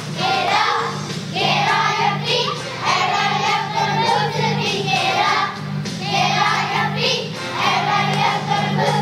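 A choir of young children singing together, with regular pauses between phrases. A steady, repeating accompaniment with a beat runs underneath.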